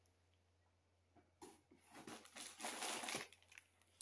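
Plastic candy packaging crinkling in a few bursts, starting about a second and a half in after near silence.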